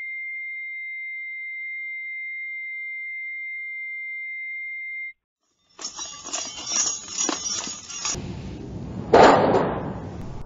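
A steady high-pitched pure electronic tone that cuts off suddenly about five seconds in. After a brief silence, a dense jumble of clattering and noise takes over, with a loud burst of noise about nine seconds in.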